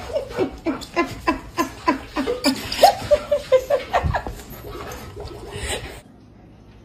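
A person laughing hard in a rapid run of short ha-ha bursts, about three a second, easing off after about four seconds and then cutting off abruptly.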